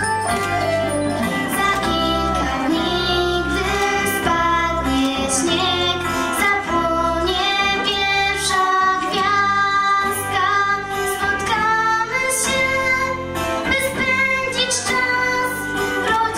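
A girl singing a Polish Christmas carol into a handheld microphone over instrumental accompaniment, in long held notes that glide between pitches.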